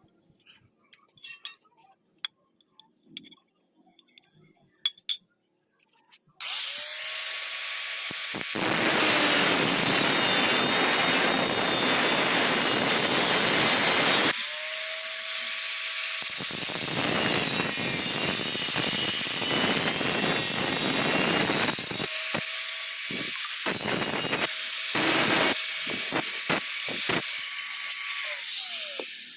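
Light metallic clinks, then a power tool with an abrasive cut-off disc spins up about six seconds in and cuts through steel angle iron: a loud grinding rasp over a steady motor whine. It briefly eases off and spins up again, then cuts on until the whine winds down near the end.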